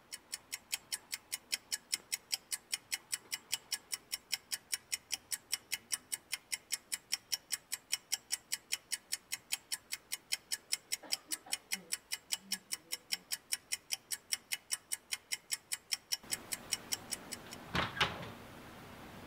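Clock ticking, an even run of sharp ticks about four a second that stops suddenly about 16 seconds in. A couple of short knocks follow near the end.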